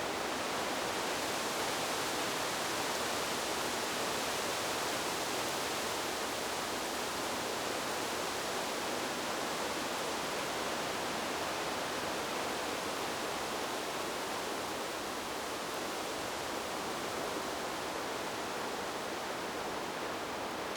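Wind blowing through forest trees: a steady rushing of leaves and branches, swelling slightly in the first few seconds and easing a little later.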